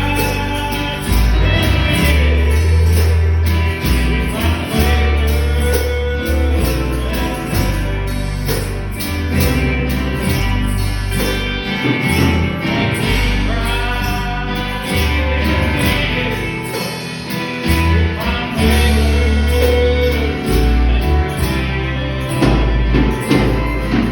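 Gospel music: singing over a strong bass line, with steady high percussion such as a tambourine.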